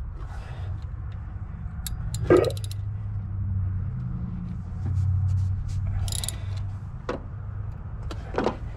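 Hand tools knocking and clinking against metal during work on a car's thermostat: a few sharp knocks, the loudest about two seconds in and others near the end, over a steady low rumble.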